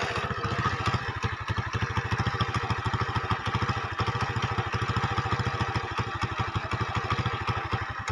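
An engine running steadily with a low, rapid, even chugging beat.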